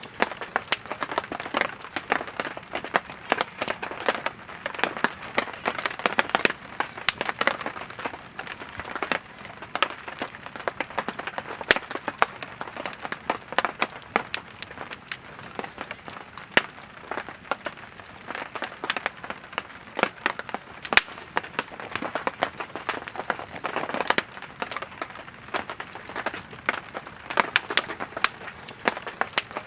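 Campfire of burning firewood crackling and popping: many sharp, irregular snaps over a steady hiss of flames.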